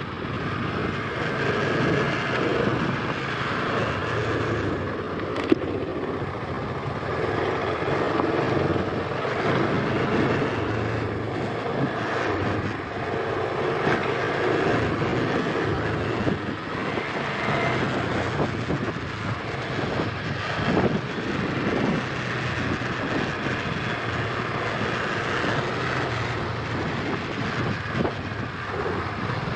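KTM Adventure 250's single-cylinder engine running steadily while under way on a dirt trail, mixed with wind noise on the microphone. A single sharp click about five and a half seconds in.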